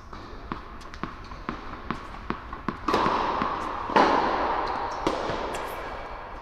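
A tennis ball bounced on a hard indoor court with sharp, evenly spaced knocks about twice a second. About three seconds in comes a louder rustling noise opened by two sharp knocks, fading over the next few seconds.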